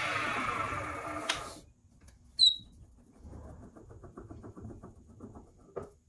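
A lathe sanding an epoxy resin shift knob as it spins. The hum falls in pitch and cuts off about a second and a half in as the lathe is switched off. A short, high squeak follows, then faint handling clicks.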